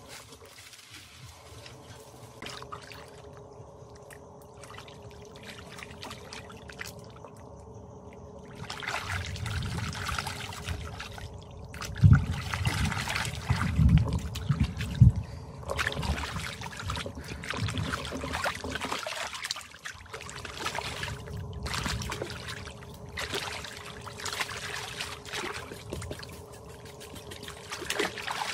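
Creek water sloshing and splashing as a pig carcass is scrubbed by hand, with a cluster of heavier splashes and thuds a little under halfway through. It starts faint and gets louder about a third of the way in.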